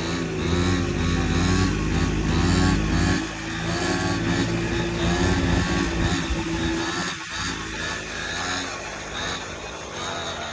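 X3 pocket bike's small two-stroke engine running, its pitch rising and falling over and over as the throttle is worked; the deep rumble eases off about three seconds in.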